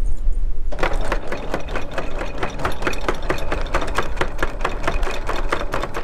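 Anchor windlass running chain, the links clattering over the gypsy in a quick, even rhythm that starts just under a second in.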